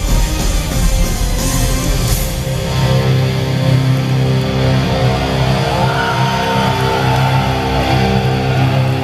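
Live heavy metal band playing loud, with distorted electric guitars and drums. Fast, dense playing for the first couple of seconds gives way to a long held, ringing chord, with a lead guitar line sustained and bending above it.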